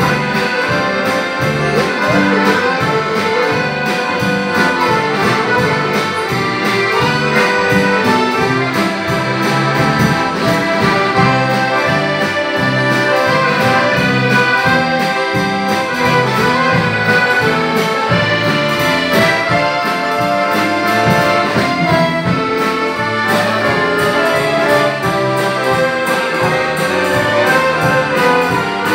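An accordion orchestra playing live, many accordions sounding sustained chords and melody over a steady bass pulse.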